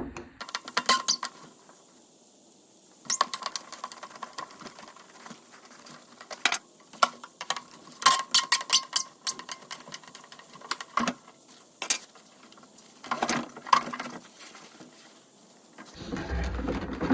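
Irregular light clicks, taps and small rattles of hand tools, screws and hard plastic being handled as a Stihl BR600 backpack blower's housing is worked loose from its back panel, with a duller, louder bump near the end.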